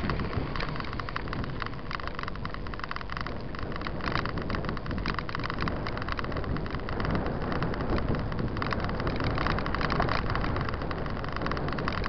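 Mountain bike rolling along a paved road, heard from the moving bike: steady wind rumble on the microphone with a dense rattle and tyre noise.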